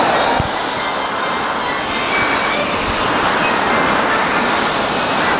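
Road traffic passing on a wet city street: a steady wash of tyre and engine noise from cars and vans.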